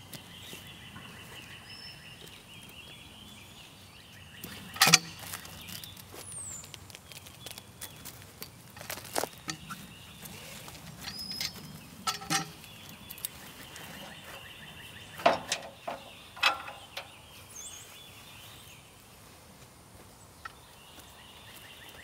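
Several sharp knocks and clanks from a cant hook levering a heavy pine log and from work at the sawmill's steel frame, over quiet outdoor ambience with birds chirping.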